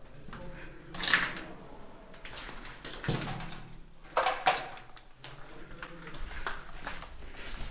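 Footsteps and gear scuffing and knocking on a gritty, debris-covered floor, with a few louder knocks about a second in and twice around four seconds in.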